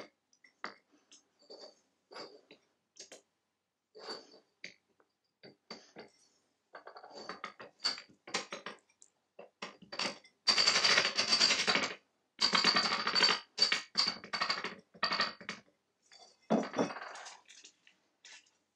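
Hand tools scraping cast aluminium: a tapered hand reamer is turned in the holes of an aluminium vice jaw. It starts as short separate scrapes, then becomes long, louder scraping strokes with a faint metallic ring. A dull knock comes near the end.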